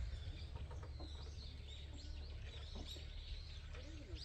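Several small birds chirping and calling back and forth in quick, high notes, over a steady low rumble.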